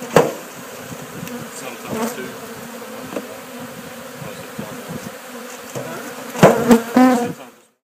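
Honeybees swarming in the air around opened hives, buzzing steadily, with a few sharp knocks and a louder cluster of them near the end. The sound cuts off suddenly just before the end.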